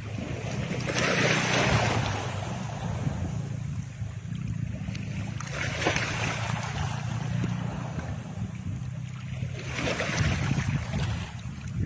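Background soundtrack: a steady low drone under a soft hissing swell that rises and fades three times, about every four seconds.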